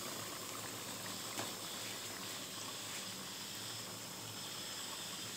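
Pakoras deep-frying in hot oil in a metal karahi: the oil sizzles and bubbles steadily, with a faint pop about a second and a half in.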